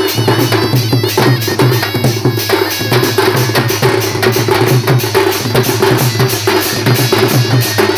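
Folk drum band playing a fast, steady rhythm: a dhol barrel drum and side drums beaten with sticks, with a trumpet sounding above the drums.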